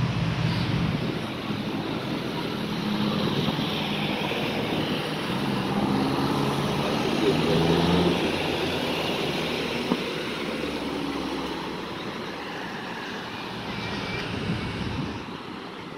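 Road traffic on a town street: car engines pulling away and vehicles passing close by with engine and tyre noise. The sound swells about halfway through and then fades.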